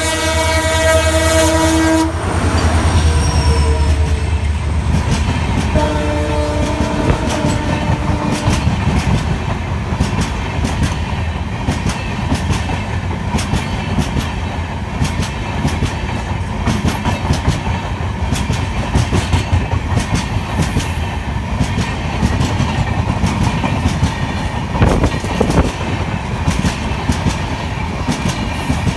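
Indian Railways locomotive horn sounding a loud chord that cuts off about two seconds in, followed by a few shorter, fainter horn notes. Then the train runs past with a steady rumble and wheels clattering over the rail joints.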